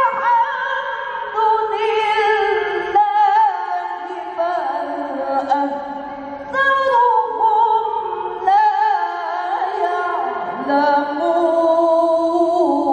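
A male qari reciting the Qur'an in melodic tilawah style through a microphone: long, high, sustained phrases with wavering ornaments. There are short breaths about three, six and a half and eight and a half seconds in.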